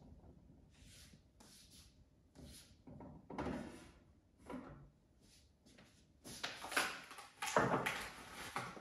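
Food containers being taken out of a refrigerator and set down on a stone kitchen countertop: a series of short, faint knocks and rustles, busier and louder in the last few seconds.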